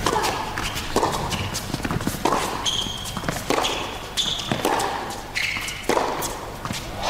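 Tennis rally on an indoor hard court: rackets strike the ball about six times, roughly a stroke a second, with short high shoe squeaks on the court between shots.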